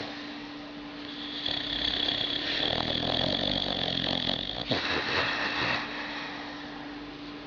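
A sleeping animal snoring: a long snoring breath about a second in, then a shorter one about five seconds in.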